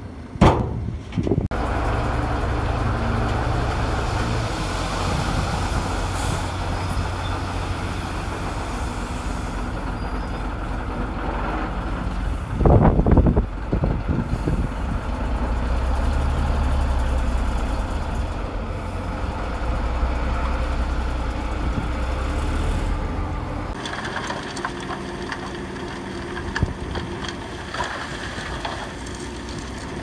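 Diesel engine of a Komatsu D20P bulldozer working under load, its note swelling and easing as it pushes soil, with a loud noisy burst about halfway through. Near the end the engine settles to a lighter, steadier running.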